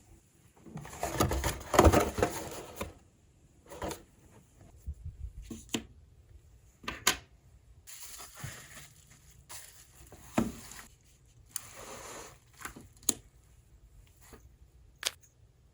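Packaging being handled and opened: cardboard and plastic rustling and crinkling in bursts, the loudest about a second or two in, with a few sharp knocks and clicks in between.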